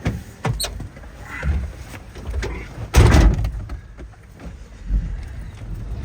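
A cargo vehicle's door being handled and slammed shut, with a few knocks and rattles before one loud slam about three seconds in.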